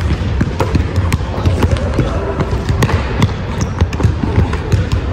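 A basketball bouncing on a court during one-on-one play: irregularly spaced sharp thuds, several a second at times, over a steady low rumble.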